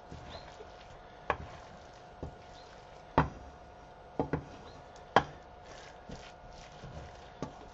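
Wooden spatula knocking and scraping against a frying pan as fried rice is stirred and turned: a handful of sharp knocks at uneven intervals, two of them close together just after four seconds. A faint steady hum runs underneath.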